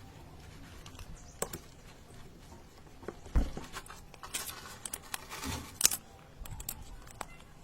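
Handling noises from a plastic bottle and broom handle being worked by hand: scattered clicks, a low thump about three seconds in, and two short bursts of crackling and scraping of plastic a little after.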